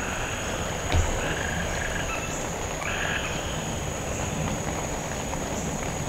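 Frogs calling in short repeated croaks over a steady high-pitched drone, with a single light knock about a second in.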